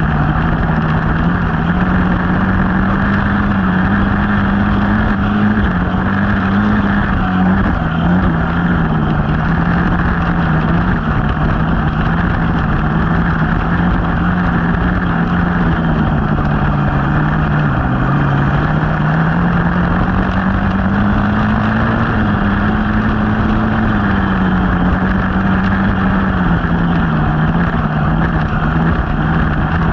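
Dirt bike engine running continuously while being ridden, its pitch rising and falling gently with the throttle.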